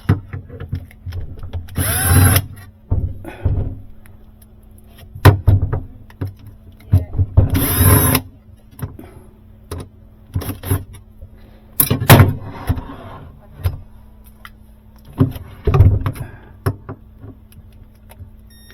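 Cordless screw gun run in several short bursts, its motor pitch rising and falling, backing out the screws that hold a Sub-Zero 700 series refrigerator's metal drawer slides. Sharp clicks and knocks of the metal slides and screws come between the bursts.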